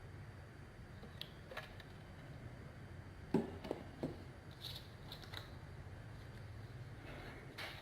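Faint, scattered clicks and light taps from handling a bottle and bowl while slime activator is poured, the most distinct about three and a half seconds in, over a low steady hum.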